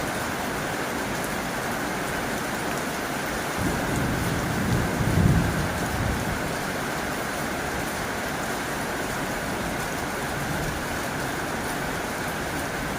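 Heavy rain falling steadily on a tin roof, with a low rumble swelling and fading about four to six seconds in.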